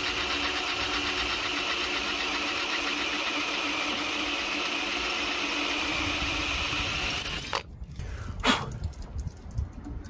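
Electric drill running steadily as a twist bit bores into a cast iron doorstop, cutting the hole that will be tapped for threads. The drill stops about seven and a half seconds in, followed by a few light knocks.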